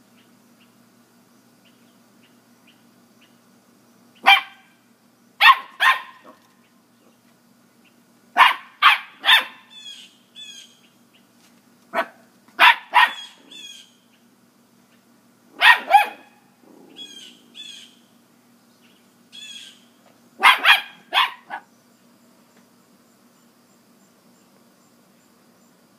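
A corgi barking sharply up at a cat, in short bursts of one to three barks, about six bursts spread through the stretch.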